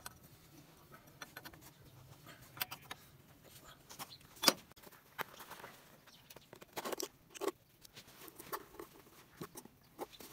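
Scattered clicks and knocks as a spanner is worked on the drain plug and a plastic oil jug is handled and its cap opened. The sharpest knock comes about four and a half seconds in.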